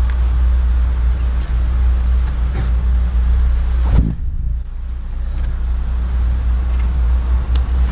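A steady low rumble, with one thump about four seconds in as a car tyre is put into the car's boot.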